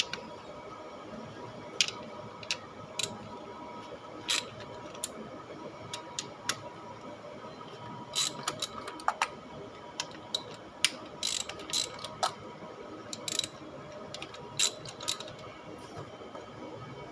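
Ratchet wrench clicking in short, irregular runs while loosening the valve-cover bolts on a car engine.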